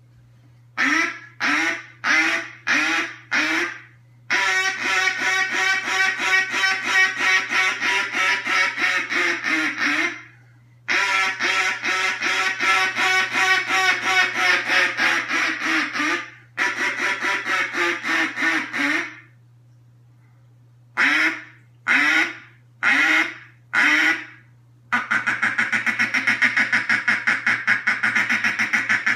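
Chick Meade reproduction Reelfoot duck call blown in a calling sequence: five separate quacks, then long runs of quick quacks of about five a second with short breaks, another set of separate quacks, and a faster, steady rattling run near the end.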